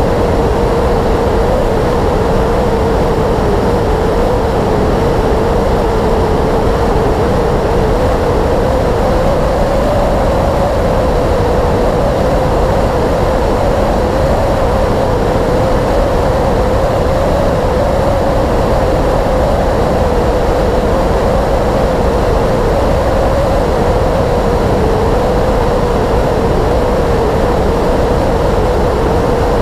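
Yamaha YZF-R6S inline-four engine running at steady cruising revs, its pitch wavering only slightly, under a constant rush of wind noise.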